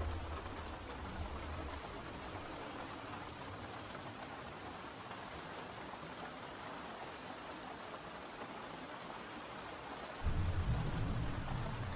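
Steady rain falling. A low rumble fades over the first couple of seconds, and another low rumble starts suddenly about ten seconds in.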